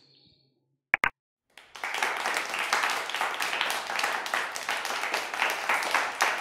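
A short click about a second in, then clapping and applause from a crowd that runs on steadily.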